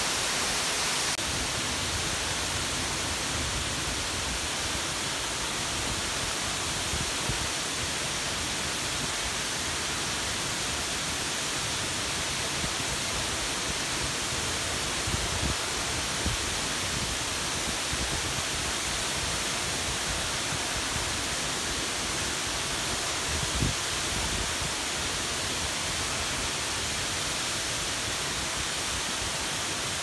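Shine Falls waterfall, water falling in a steady, even rush, with a few brief low thumps about halfway through and again about two-thirds through.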